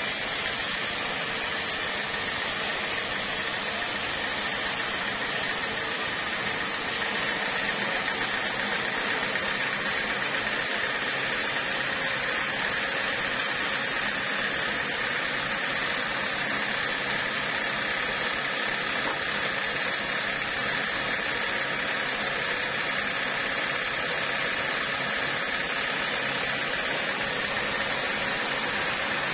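Band sawmill running steadily, its blade sawing a teak plank: an even machine noise with a constant high whine.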